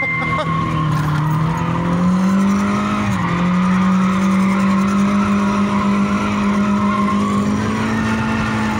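BMW E30 engine held at high revs through a drift, heard from inside the cabin, with tyres squealing as the car slides. The revs climb about two seconds in, dip briefly about a second later, then hold high.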